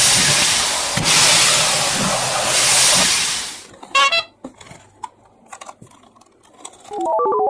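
Toy train sound effects: loud hissing steam puffs about a second apart that stop after about three and a half seconds, then a short toot, a few quiet clicks, and an electronic tune of quick notes starting near the end.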